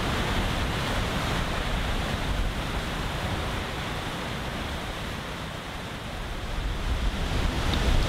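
Waterfall rushing, a steady noise of falling water with a low rumble underneath. It dips slightly in the middle and grows louder near the end.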